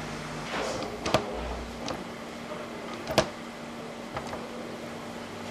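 Scattered sharp metal clicks and taps, about five, the loudest about three seconds in: a thin stainless-steel microtube and the hand tube bender's roller arm and stepped cone knocking together as the tube is bent by hand.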